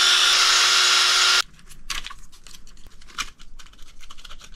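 Black+Decker cordless screwdriver motor running steadily while backing a screw out of the plastic skid plate, cutting off about a second and a half in. Small clicks and plastic rattles follow as the skid plate is handled.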